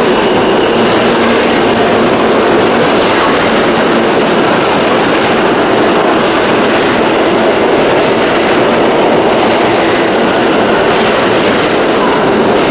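New York subway train running through the station: a loud, steady rumble with wheel clatter.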